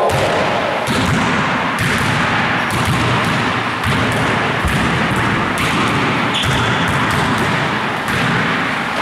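A basketball being passed and caught again and again in a passing drill, with a sharp impact about once a second over a steady background noise.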